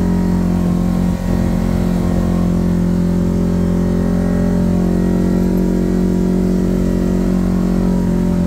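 Kawasaki Teryx KRX 1000 side-by-side's parallel-twin engine running at a steady, even pitch while driving along, heard from the cab, with a brief dip about a second in.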